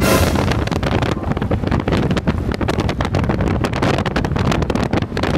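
Nissan 240SX's turbocharged SR20DET engine running at speed, with wind buffeting the microphone.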